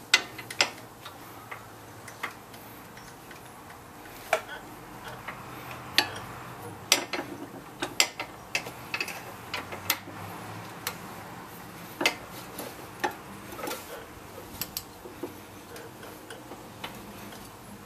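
Irregular sharp metallic clicks and clinks of hand tools working at a bolt on a rear brake caliper, with a few quick clusters of clicks.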